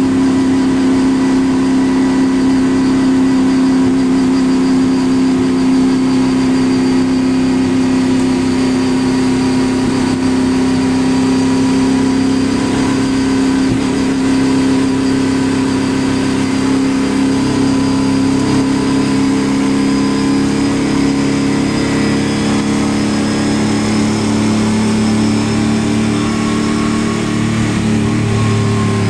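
Race car engine running hard under way, heard from inside the stripped-out cabin, its pitch holding fairly steady and shifting a little near the end.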